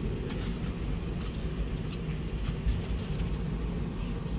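Cabin noise of a Boeing 717 taxiing: a steady low rumble from the idling Rolls-Royce BR715 engines and the wheels on the taxiway, with scattered light clicks and rattles.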